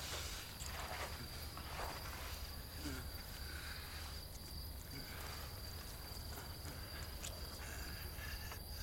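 Crickets chirping in one steady high trill over a low steady hum: a night-time ambience.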